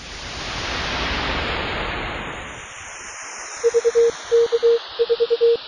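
A hiss like radio static swells and fades. About three and a half seconds in, a steady single-pitch tone starts keying on and off in short and long elements: Morse code.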